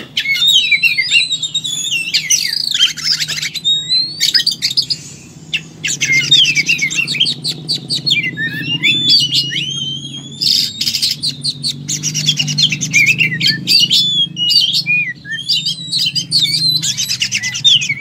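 Oriental magpie-robin (kacer) singing loudly and almost without pause in full fighting mode: a varied stream of whistled notes and sliding phrases broken by fast, buzzy rattles.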